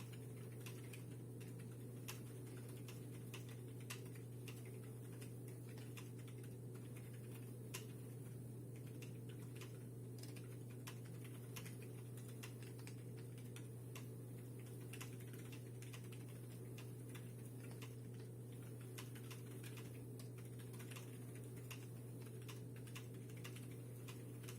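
Typing on a plateless, PCB-mount KBD75 mechanical keyboard with Cherry MX Brown tactile switches, QMX silencing clips and Cherry-profile PBT keycaps: a continuous quick run of key clacks. A steady low hum sits beneath.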